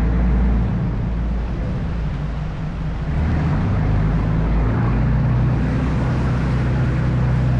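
Sightseeing boat's engine running steadily with a low hum, under the rush of water and wind noise.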